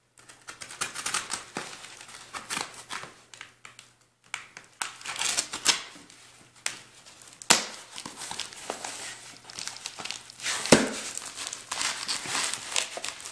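A knife slitting the packing tape around the edges of a flat cardboard mailer: irregular scratching, ripping and crinkling, with two sharp knocks in the second half, the later one the loudest. Near the end the box lid opens onto crinkling plastic cling wrap.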